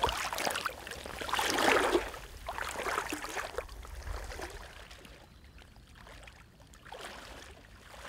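Water sloshing and swishing around a person's legs as they wade through shallow water in waders, in irregular surges with each stride. It is loudest in the first two seconds and dies down to quiet lapping after about five seconds.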